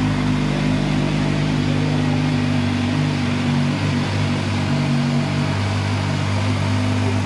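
CFMoto 500SR Voom's inline-four engine idling steadily just after a cold start.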